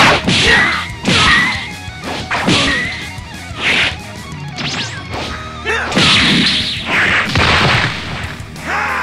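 Dubbed fight sound effects: a run of sharp punch hits and whooshes, then a crash as a building wall is smashed and throws up rubble and dust.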